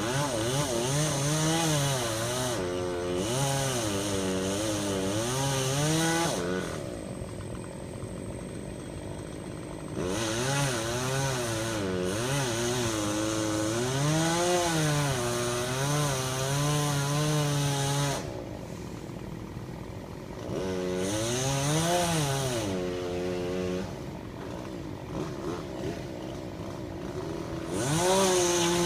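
Chainsaw cutting ash wood, running at full throttle in four bouts with its pitch wavering under load, and dropping back to idle between the bouts.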